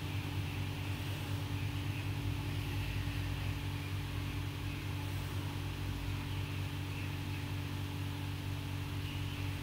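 Steady low hum with an even hiss: room background noise, unchanging throughout.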